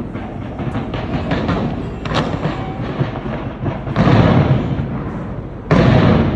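Fireworks going off: a rapid run of cracks and pops, then two heavy booms, one about four seconds in and one near the end, each rumbling away over about half a second.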